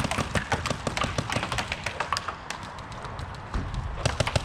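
Mechanical paintball markers firing rapid shots across the field, a dense patter of sharp pops. The shots thin out for about a second past the middle, then come thick and fast again near the end.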